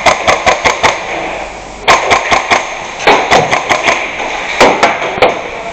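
Gas-blowback airsoft rifle (Cybergun FN SCAR-L MK2 MWS) firing four quick strings of sharp cracks, about five or six shots a second, with short pauses between the strings.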